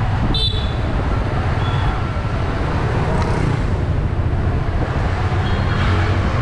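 Riding a motorbike through traffic, heard through a bike-mounted action camera's microphone: steady rumbling wind and road noise with surrounding traffic. Short high-pitched tones sound about half a second in and again near the end.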